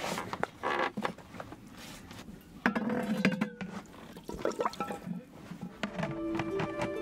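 Water being poured and sloshing in a plastic basin as dishes are washed, with clinks of crockery and a spoon. Music comes in near the end.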